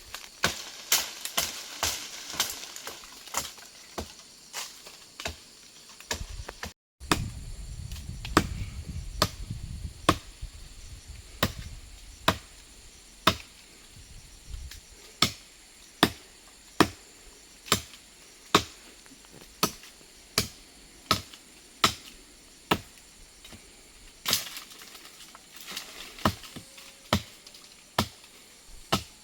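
Steady chopping with a blade: a long run of sharp strikes at an even pace, a little over one a second, broken once by a cut about seven seconds in.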